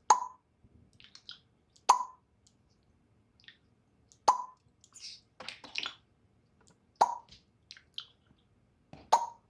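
Grey parrot making sharp snap-like pops in imitation of finger snapping: five pops about two seconds apart, with fainter short clicks and chirps between them.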